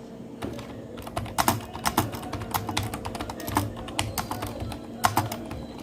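Keys of an HP K500F gaming keyboard being pressed as a typing sound test, an irregular run of sharp key clicks with denser bursts about a second and a half in and again near the end.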